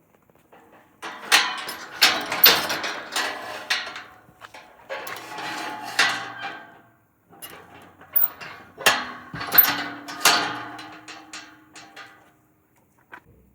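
Knocking and clattering in three bursts, each made of many sharp knocks close together.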